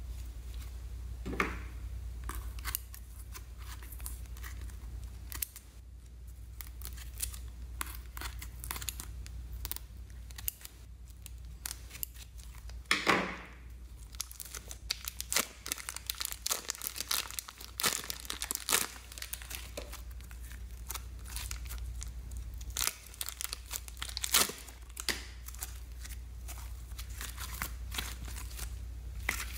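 Blue slime being squeezed from plastic piping bags and kneaded by hand: sticky crackles, pops and crinkles in quick irregular succession, with a longer squelch about a second in and another near the middle.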